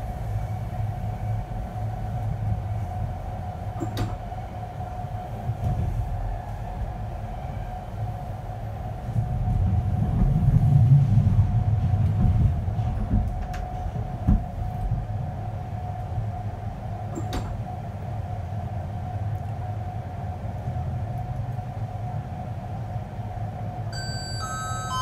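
Ride noise inside a passenger coach of an Intercity express train: a steady low rumble of wheels on track with a steady hum, swelling louder for a few seconds in the middle, with a couple of sharp clicks. Near the end, the onboard announcement chime starts with short tones stepping down in pitch.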